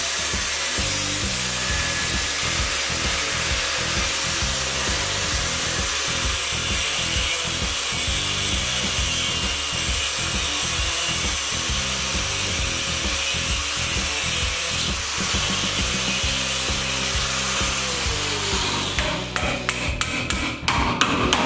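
Angle grinder with a thin cutting disc running and cutting through a steel block held in a vise. The grinder's pitch drops as it winds down, and near the end a steel rod knocks against the metal in a quick run of clinks.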